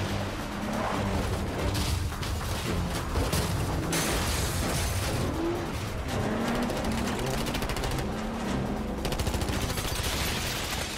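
Rapid bursts of automatic gunfire during a film car chase, over dramatic film score music.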